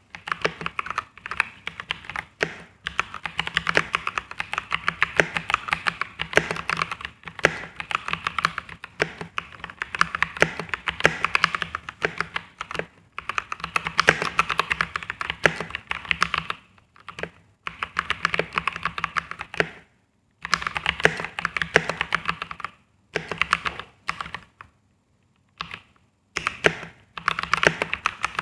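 Typing test on a Voyager 68 Milky Way Edition mechanical keyboard with Gateron Yellow linear switches: fast, continuous key clacking in runs, with a few short pauses in the second half.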